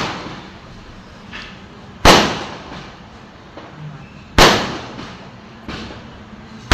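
Aerial fireworks bursting: loud sharp bangs about every two seconds, each fading out over a second or so, with fainter pops between.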